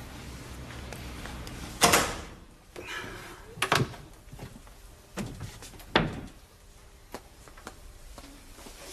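A few separate knocks and thuds, like a door or cupboard being handled, the loudest about two seconds in, with others near four and six seconds.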